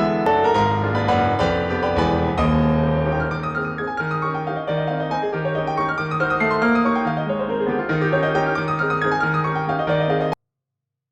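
Background piano music with a repeated low note under a melody, cutting off abruptly about ten seconds in to dead silence.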